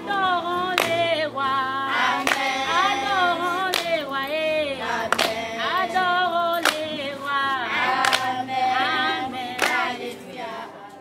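A group of girls singing together in unison, one voice leading, with a sharp hand clap about every second and a half. The singing stops just before the end.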